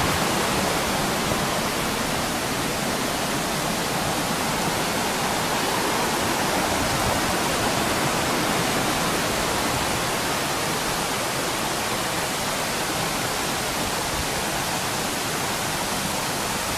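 Mountain stream rushing over rocks: a steady, even rush of water with no breaks.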